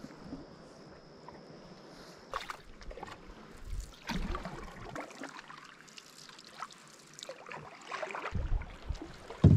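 Wooden canoe paddles dipping and pulling through lake water, with irregular splashes and drips. A low rumble builds near the end.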